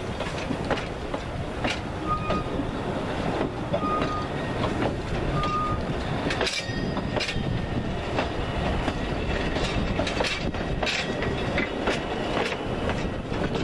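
Narrow-gauge railway coaches rolling past, their wheels clattering over the rail joints with scattered sharp clicks over a steady rumble.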